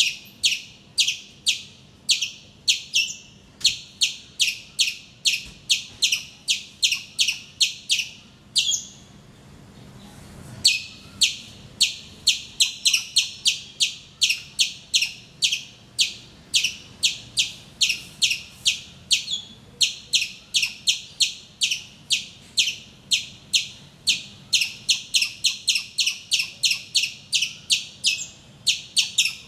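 A squirrel calling: a long run of sharp, high chip notes, about three a second, broken by a pause of about two seconds a little before the middle.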